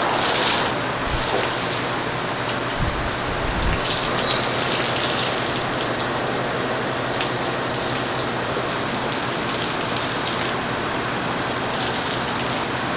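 Water poured from a ladle over raw suckling pig carcasses, splashing on the skin and dripping onto a wet concrete floor, with a steady hiss underneath.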